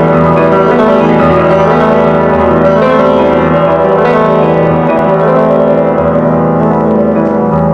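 Grand piano played solo, with held chords and notes running on without a break.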